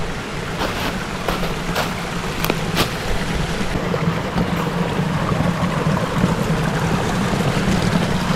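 Hiker's footsteps on a trail, a few sharp steps about half a second apart over the first three seconds, over a steady rushing noise that swells slightly toward the end.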